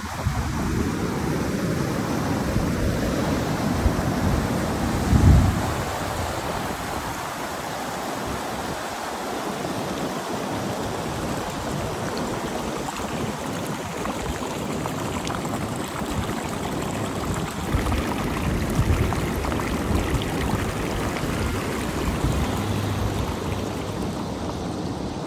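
Rushing mountain stream, a steady hiss of water, with wind buffeting the microphone and one heavy gust about five seconds in.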